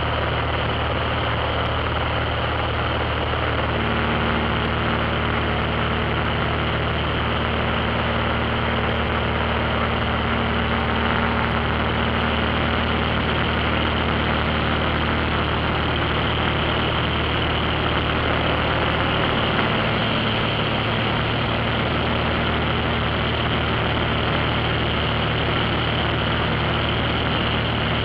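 Small high-wing airplane's engine and propeller in cruise flight, a steady drone heard from inside the cabin.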